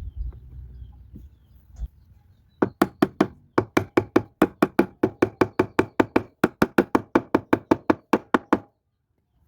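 Rapid, even hammering, about four or five blows a second with two short breaks, driving wooden pegs into boards to join them. The blows start a couple of seconds in and stop abruptly near the end.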